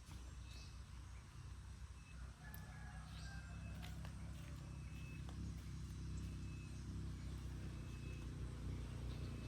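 Low engine rumble that grows gradually louder, like a motor vehicle drawing closer, with a faint high chirp repeating about every second and a half and a few light clicks.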